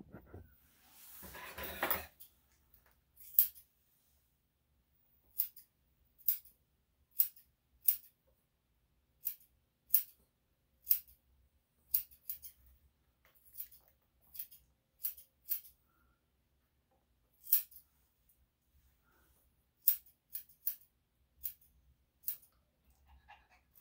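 Grooming scissors snipping through a Yorkshire Terrier cross's long leg hair: about twenty single sharp snips, irregularly spaced with short pauses, after a brief rustle about a second in.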